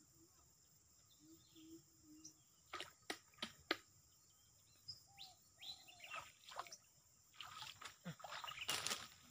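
Faint bird chirps, a few sharp snaps around the middle, then rustling of grass and leafy plants as someone pushes through the vegetation near the end, the loudest sound.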